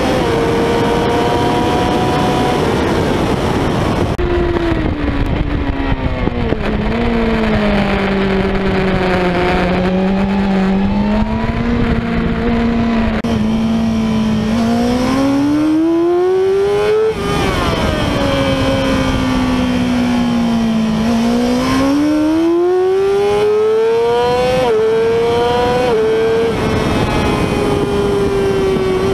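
Yamaha R6 600 cc inline-four sportbike engine at racing speed, heard from an onboard camera with steady wind rush. The engine note falls in steps as the rider brakes and shifts down for corners, then climbs hard on the throttle, with quick upshifts breaking the rising note near the end.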